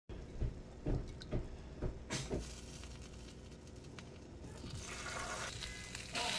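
A few light knocks as the bowl and whisk are handled, then beaten eggs are poured onto a hot griddle. A sizzling hiss builds over the last second or two.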